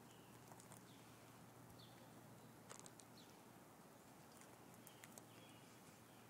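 Near silence, with faint, brief bird chirps a few times and some light clicks.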